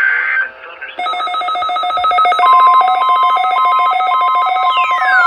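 Electronic alert tones, apparently on the weather radio's test alert. A buzzy tone cuts off in the first half-second; about a second in, a fast pulsing electronic alarm of several stepping tones begins, a steady tone joins halfway through, and a falling siren-like sweep starts near the end.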